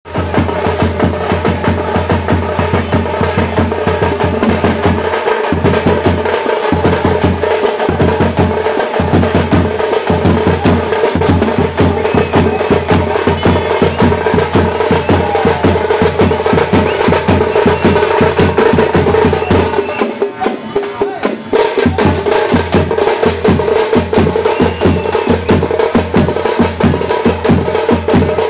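Street drum band: large double-headed bass drums struck with sticks, together with smaller drums, play a loud, fast, continuous rhythm. The deep bass-drum beat drops out briefly about twenty seconds in.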